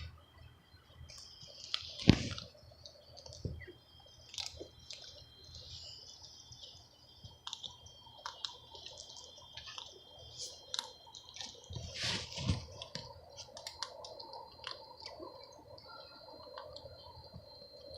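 Squirrel gnawing and crunching a nut shell: irregular small clicks and cracks, with a loud thump about two seconds in and another about twelve seconds in.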